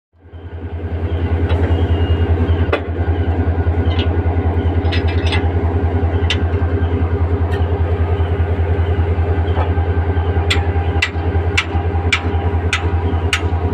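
1500 HP 2600-series diesel locomotive's engine idling with a steady, pulsing low hum. Near the end there is a run of sharp metallic clicks, about two a second, from the coupling being worked.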